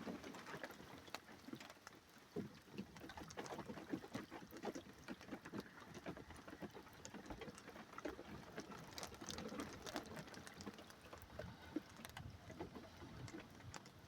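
Faint, irregular patter of raindrops, a scatter of small ticks over a soft hiss, with no thunder.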